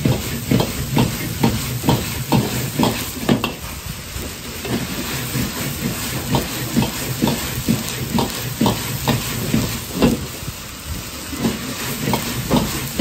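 A metal wok ladle striking and scraping an iron wok in quick, regular strokes, about two to three a second, as fried rice is stir-fried. Under it runs the steady hiss and rumble of a high-output gas wok burner. The strokes thin out for a few seconds midway, then pick up again.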